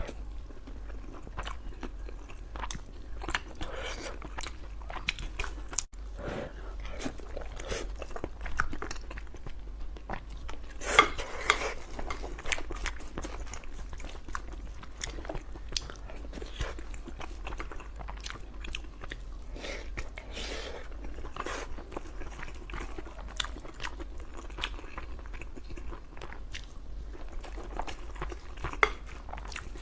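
A person chewing and biting a mouthful of braised pork belly with rice: many short, wet mouth clicks, with a louder one about eleven seconds in. A low steady hum lies underneath.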